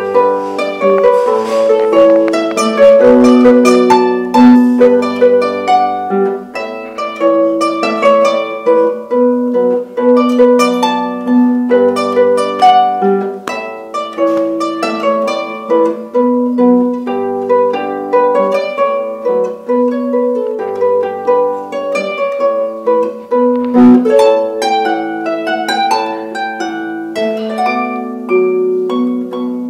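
Wooden lever harp played by hand: a steady flow of plucked notes that ring on over one another, with occasional low bass notes underneath.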